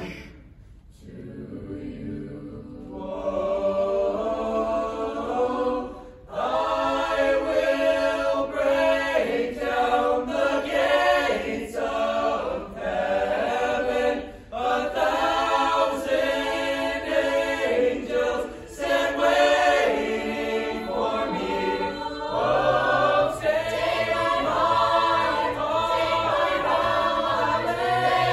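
Mixed choir of young voices singing in phrases under a conductor. The voices fall away about a second in, come back softly, then swell to full voice with short breaths between phrases.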